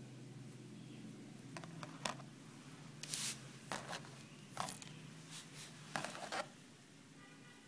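Light clicks and short scrapes of a bent steel wire and a small metal cap being handled and set down on a tabletop, several of them spaced over a few seconds, over a steady low hum.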